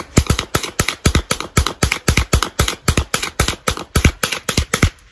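Draco AK-pattern pistol fired in rapid succession, about five shots a second, some two dozen in all, stopping just before the end.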